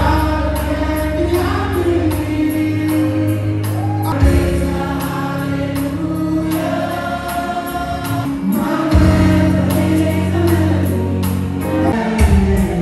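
Church worship team performing gospel music live: lead and backing singers over electric bass, keyboards and drums with a steady beat.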